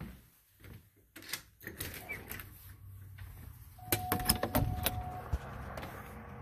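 Phone handling rustles and knocks, then a quick run of sharp clicks and knocks like a door being unlatched and opened, with a steady beep held for about a second and a half among them; after that, steady outdoor noise with a low hum.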